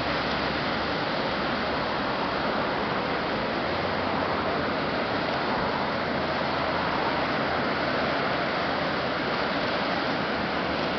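The Severn Bore, a tidal wave advancing up the River Severn, making a steady rushing noise of breaking water.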